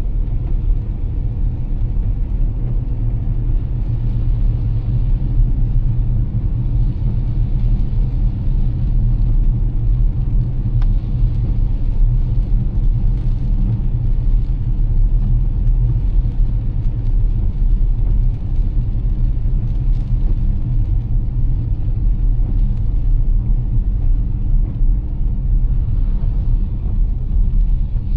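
A car driving on a rain-soaked road: a steady, loud low rumble of tyres and road noise, with a fainter hiss of rain and spray above it.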